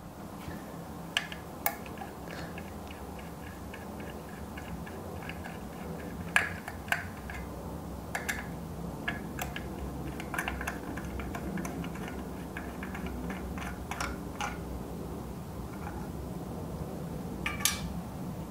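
Phillips screwdriver backing small screws out of a plastic housing: faint fine ticking as the screws turn, with a dozen or so light clicks of metal and plastic scattered through, over a steady low hum.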